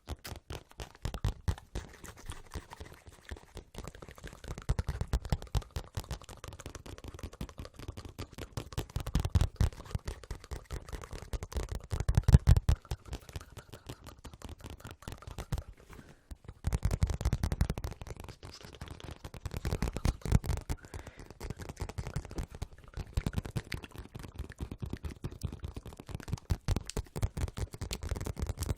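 Fast ASMR tapping close to the microphone: a dense run of quick clicks, swelling now and then into louder stretches with a low rumble.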